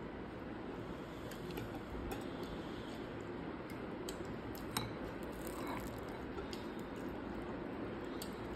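A metal spoon scraping and clicking lightly against a ceramic bowl of baked beans and scrambled eggs, over steady background noise, with one sharper click about halfway through.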